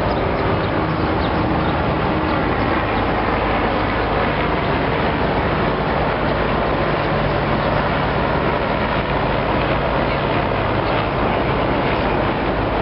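Steady outdoor background noise, with a low hum underneath.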